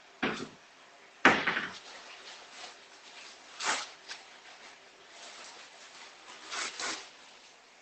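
Sudden knocks and clatters, five in all, the loudest a sharp bang about a second in that rings off briefly, the last two close together near the end.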